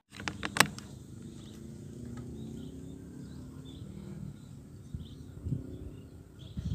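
A few sharp knocks about half a second in, then low, wavering spotted dove cooing for about four seconds, with small birds chirping faintly.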